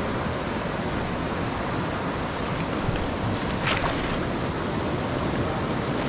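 Steady rush of a river running high after rain, the current washing past close by.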